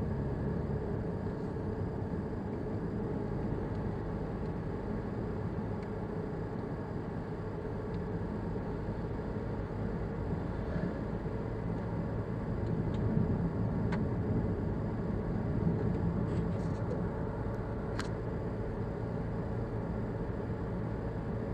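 Steady engine and road noise of a moving car, heard from inside the cabin through a dashboard camera's microphone. Two faint clicks come in the second half.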